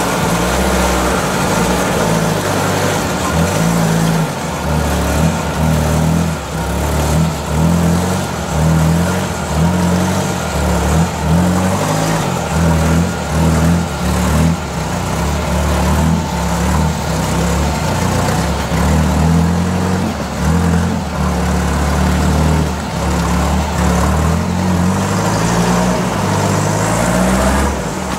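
UAZ-469 off-roader's engine revving in repeated surges, rising and falling every second or two, as the vehicle works slowly through deep mud ruts under load.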